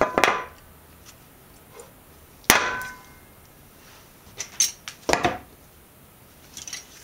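Hammer blows on a wooden block driving a new oil seal into the rear of a Toyota Land Cruiser 100 series steering knuckle: a few quick knocks at the start, one loud ringing blow about two and a half seconds in, then a few lighter knocks around five seconds.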